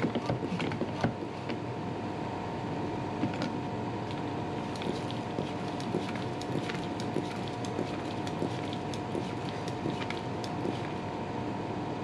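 Hand floor pump worked in repeated strokes, inflating a 10-inch electric scooter tyre with its inner tube toward 50 psi, over a steady hum.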